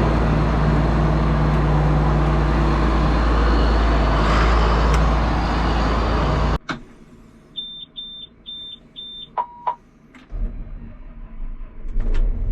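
Semi truck's diesel engine droning steadily, heard from the cab. It cuts off abruptly about two-thirds in. After the cut come four short high electronic beeps, then two lower beeps. A low engine rumble starts near the end.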